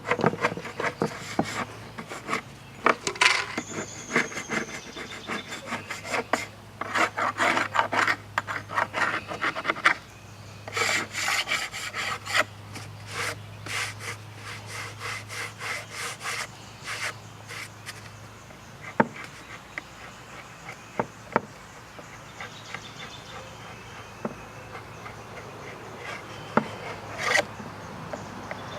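Quick back-and-forth rubbing strokes on wood in several bursts, as in work on cabinet doors. After about 18 seconds the strokes stop, leaving only scattered light knocks and clicks.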